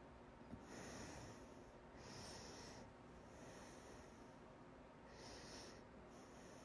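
A person breathing faintly, about five short breaths with a high hiss, while they have hiccups.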